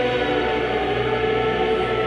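A choir singing long held notes.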